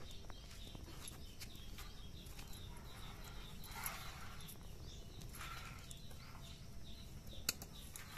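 Faint clicks and soft rustling of dry husks being peeled off by hand, with a sharper click near the end, over a quiet outdoor background.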